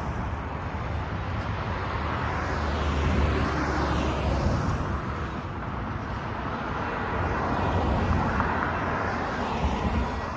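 Road traffic: cars driving past over the level crossing, their tyre and engine noise swelling and fading as each one goes by, with a low rumble strongest a few seconds in.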